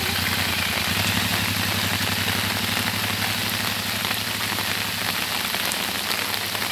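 Heavy rain falling on a wet road, with the low, steady pulse of an engine running underneath.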